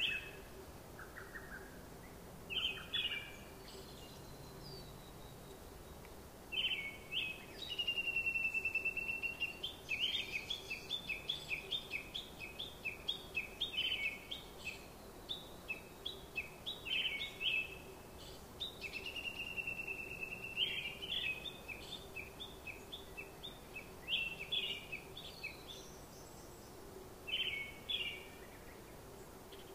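Birds chirping: short high calls coming and going, with quick runs of repeated notes through the middle, over a faint steady hum.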